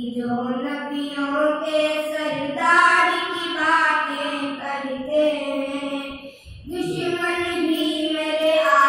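Two boys singing a naat, an Islamic devotional song, into a microphone with no instruments: long held notes that bend and glide in pitch, with a short breath pause about six seconds in.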